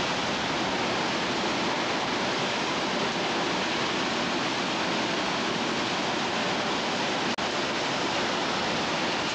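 Hurricane wind and heavy rain: a steady, dense rush of noise with no let-up, cutting out for an instant once near the end.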